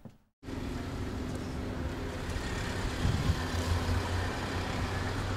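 Outdoor background of distant road traffic: a steady low rumble with a faint hum, starting abruptly about half a second in.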